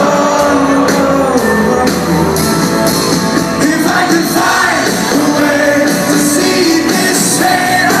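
Rock band playing live with a lead singer, heard from the audience floor of a concert hall: amplified instruments and vocals at a steady loud level.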